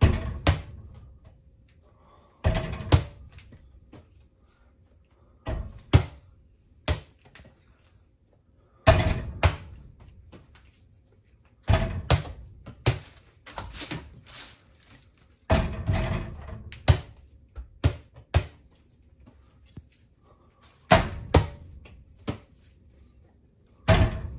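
A soft, bouncy mini basketball shot repeatedly at an over-the-door mini hoop. It knocks against the backboard, rim and door and bounces off, making a quick cluster of thuds every few seconds.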